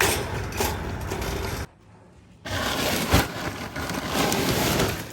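LECA clay pebbles being rinsed: water running over the pebbles as they rattle and clatter. The sound breaks off briefly about two seconds in, then resumes.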